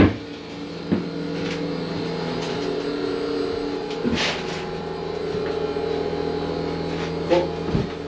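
Steady hum of machinery running on board, holding several even tones, with a few sharp knocks at the start, about a second in and about four seconds in.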